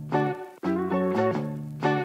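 Background music: a guitar-led tune with chords plucked in a steady rhythm.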